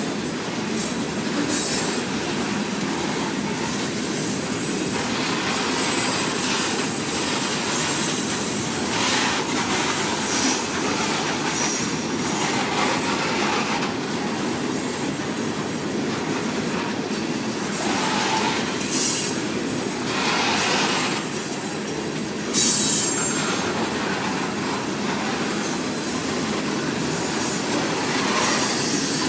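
Freight train cars rolling past with a steady rumble and wheel clatter, with now and then a brief high screech from the wheels.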